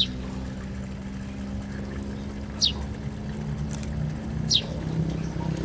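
A motor vehicle's engine running steadily with a low hum, with a short, high, falling chirp three times.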